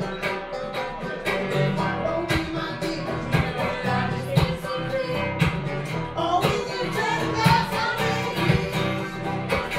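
Acoustic guitar and banjo playing a folk song in a steady strummed rhythm, with a man singing along.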